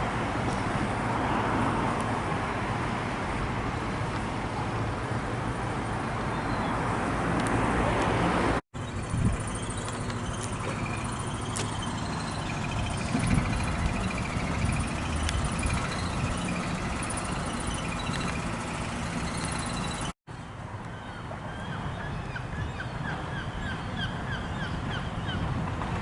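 Miniature railway train running, a steady rumble and rush that breaks off abruptly twice. Short repeated bird calls are heard in the later part.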